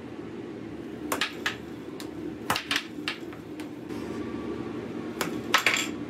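Air hockey table in play: its blower fan hums steadily while the puck and mallets strike with a string of sharp clacks, the loudest near the end.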